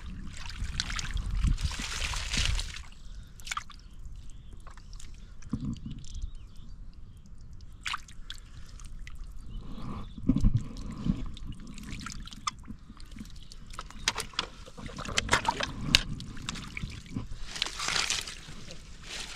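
Hands and feet squelching and sloshing in shallow muddy water while groping for fish in the mud, with scattered sharp splashes and slaps.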